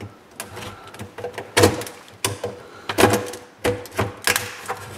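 Hard plastic of a tractor's front grille shell cracking and snapping as leftover broken pieces are worked off with a hand tool: about five sharp cracks at uneven intervals, with lighter crackling between them.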